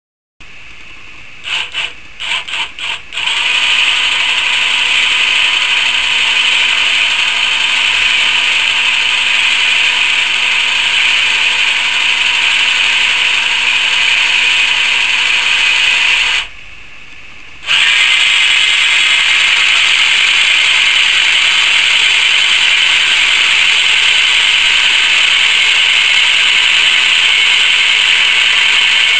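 Electric car jack's motor and gearbox whining as it drives the jack up under a standing person's weight. It starts in a few short on-off bursts, then runs steadily, stops for about a second midway, and runs again.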